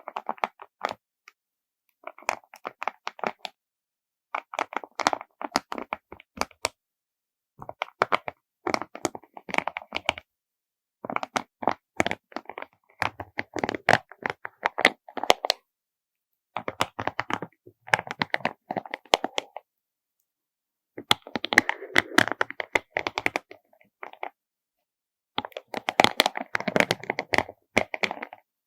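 Small beads clattering and clicking against each other and their container, in repeated bursts of a few seconds separated by short pauses.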